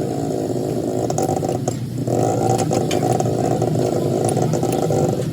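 An engine or motor running steadily with an even pitch, dropping away briefly about two seconds in and then picking up again, with a few light clicks over it.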